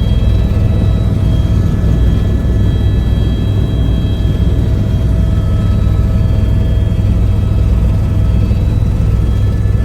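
Helicopter in flight, heard from inside: a loud, steady deep rumble of rotor and engine with a faint high whine over it.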